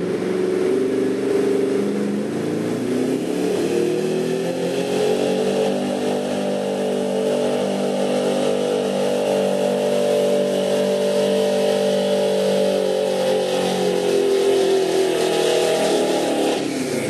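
Gas-engined Chevrolet squarebody pickup running at full throttle while pulling a weight-transfer sled. The engine's pitch climbs over the first few seconds, holds high and steady, then sags a little near the end as the sled bears down.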